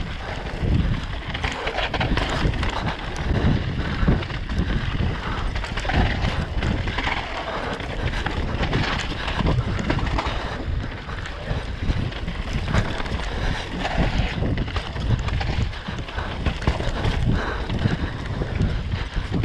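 Downhill mountain bike ridden fast over rough ground: wind buffeting the camera microphone, with a constant clatter of knocks and thumps from tyres, chain and frame over the bumps.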